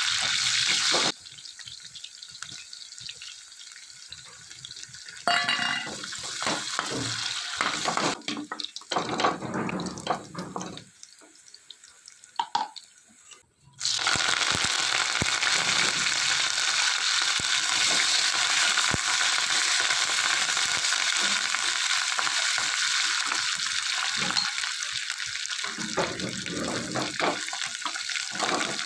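Hot oil sizzling in a steel kadai as green chillies fry, with a quieter stretch of spatula clinks and scrapes. About halfway through, curry leaves drop into the hot oil and set off a sudden loud, steady sizzle as they are stirred.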